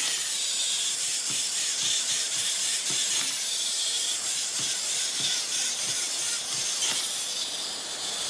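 Wind-up toys running on a tabletop: a steady whirring hiss from their clockwork motors, with scattered faint clicks and taps.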